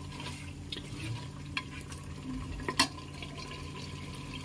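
Chicken korma being stirred and fried in an open pressure cooker: a spoon scraping through the thick masala with a faint sizzle, and two short clacks of the utensil against the pot, the louder about three seconds in.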